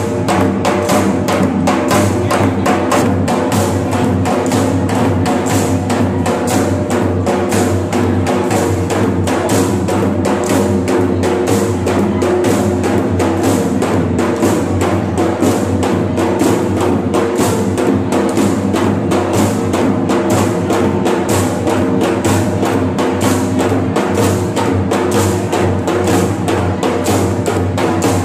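Dhol drums beating a fast, steady rhythm for a dandiya raas stick dance, with wooden dandiya sticks clacking in time.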